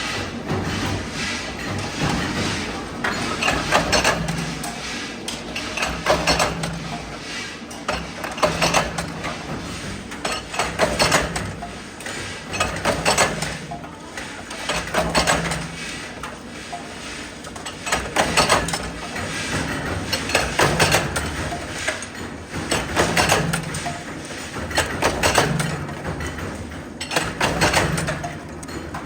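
Metalworking machinery in a hex nut factory clanking in a steady repeating cycle, a burst of metal-on-metal knocks about every two seconds over a low machine hum.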